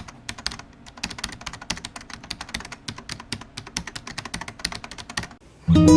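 Fast, irregular clicking of typing on a computer keyboard, stopping about five and a half seconds in. A strummed acoustic guitar chord starts just before the end.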